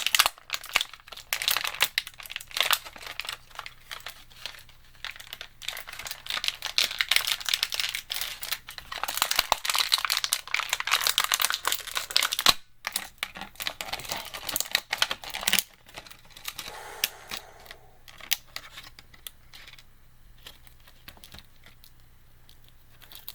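Packaging crinkling and crackling as an action figure is worked out of its box, dense rustling and clicking for about fifteen seconds, then dropping to faint handling noise.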